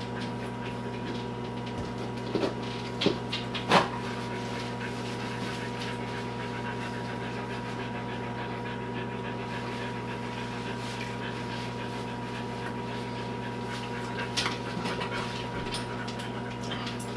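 A dog panting and moving about close by, with a few short knocks about two to four seconds in and again around fourteen seconds. A steady low hum runs underneath.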